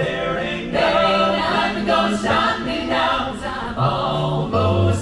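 An amplified a cappella vocal group singing in close harmony through the stage's sound system, a low sung bass line holding notes under the melody.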